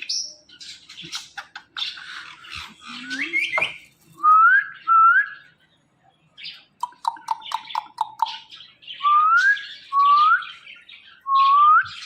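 Ringneck parrot calling: harsh squawks and chirps at first, then several short rising whistled notes, with a quick run of about six short chirps midway.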